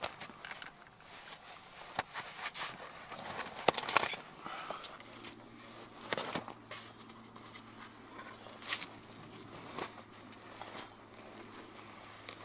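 Rustling and scuffing of a canvas bedroll being unstrapped and unrolled on leaf-littered ground, with scattered sharp clicks and knocks, loudest about four seconds in. A faint steady low hum comes in about five seconds in.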